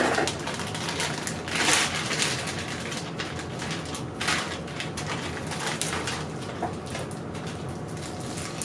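Rustling and crinkling of packaging being handled, in irregular bursts, as a new bicycle crankset is unpacked.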